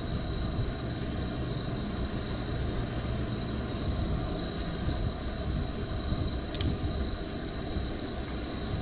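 Wind rumbling and buffeting on the microphone, with a thin, steady high whine over it and a single sharp click about six and a half seconds in.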